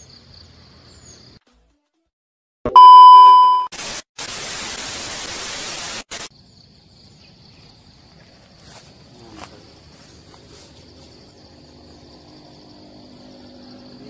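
An edited-in transition effect: after a moment of dead silence, a loud steady beep tone for about a second, then about two seconds of hissing static that cuts off suddenly. Before and after it, faint outdoor ambience with a steady high insect buzz.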